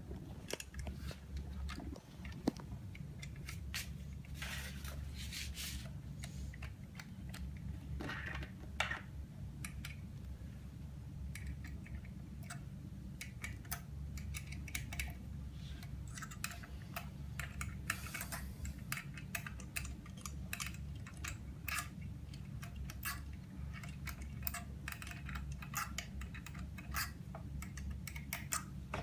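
Scattered small clicks and metallic taps of screws and a hand tool being worked into the mold of a manual OCA laminating machine, over a steady low hum.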